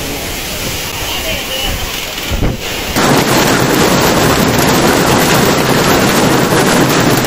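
Storm wind and driving rain buffeting the microphone. About three seconds in, this gives way to a heavy hailstorm: a dense, steady patter of hailstones striking pavement.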